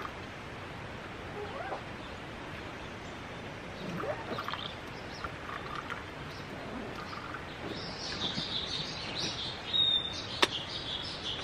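Small birds chirping, with scattered calls early and a busy run of rapid, high chirps from about eight seconds in. A single sharp knock sounds near the end.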